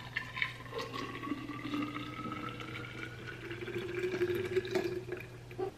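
Pulpy ginger shot juice poured in a steady stream from a glass jug into a tall glass carafe, the pitch rising slowly as the carafe fills. The pour stops just before the end.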